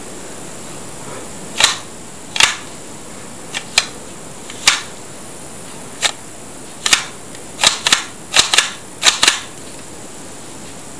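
Sharp plastic snaps and clicks from a LEGO Glock 17 model's working slide and trigger being cycled, about a dozen in an irregular run, several in quick pairs.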